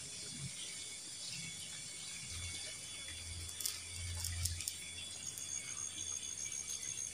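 Small wood fire of dry sticks and banana leaves being lit with a lighter and catching, with a few faint crackles and clicks around the middle.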